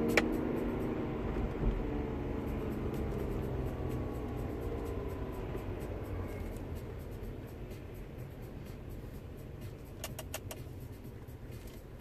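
Car engine and road rumble heard from inside the cabin. The engine note dies away as the car lifts off and slows, and a quick run of clicks comes about ten seconds in.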